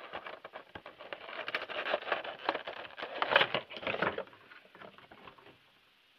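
Crinkling and rustling of a Funko Pop box's cardboard and plastic insert as the vinyl figure is worked out of the packaging. A dense run of crackles for about four seconds, loudest near the end, then fading out.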